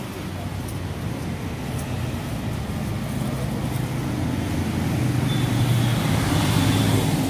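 Steady low rumble of road traffic or a vehicle engine, growing a little louder about five seconds in.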